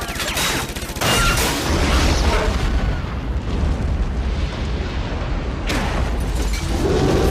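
A big explosion (a film sound effect) goes off about a second in, followed by a long, heavy low rumble. Another sudden blast or crash comes near six seconds in. Wailing tones that glide up and down start near the end.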